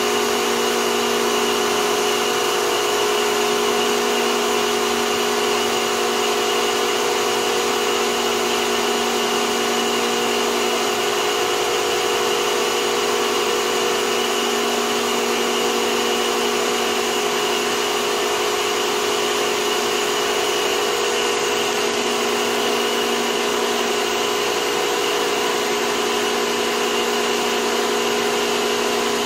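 Amada Togu III automatic punch and die grinder running, its grinding head working on a punch held in the chuck. The machine gives a steady whine of several tones over a hiss.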